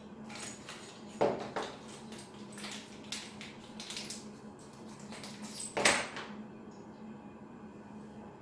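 Small metal RC suspension parts being handled and knocked together: a run of light clicks and clinks, with sharper knocks about a second in and the loudest one near six seconds, over a faint steady hum.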